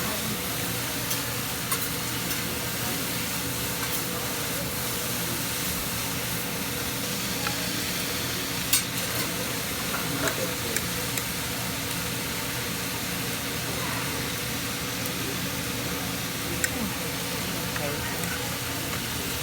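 Hibachi griddle sizzling as a steady hiss, under a low even hum, with a few sharp clicks now and then.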